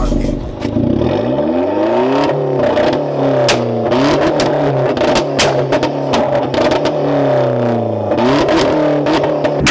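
Car engine revved hard again and again through a loud aftermarket exhaust, the pitch sweeping up and falling back several times. Sharp pops and cracks come from the exhaust between and during the revs.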